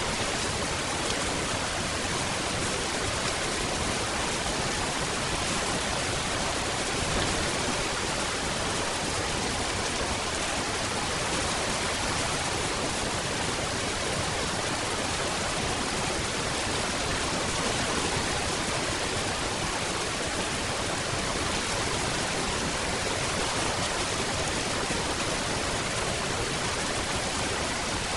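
Steady rain falling, a dense, even hiss with no single drops or thunder standing out.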